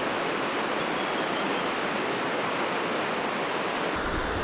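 Shallow river rushing over rocks and rapids: a steady wash of water. About four seconds in, a low rumble joins it.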